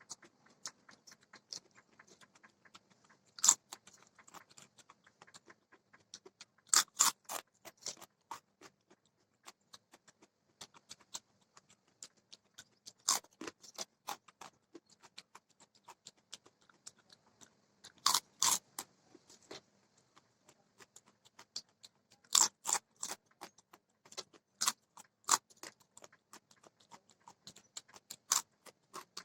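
A person chewing food close to the microphone, with a sharp, loud crunch every few seconds among the steady small wet clicks of chewing.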